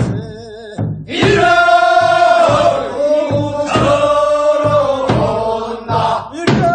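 Korean rice-paddy weeding work song (non maeneun sori) for the second weeding: a single voice holding a wavering note, then from about a second in a group of voices singing the long drawn-out refrain together, with a few sharp knocks.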